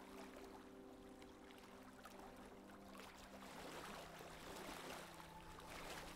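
Faint wash of water rushing and splashing along the hull of a sailboat running downwind, swelling for a couple of seconds past the middle, over soft background music of held notes.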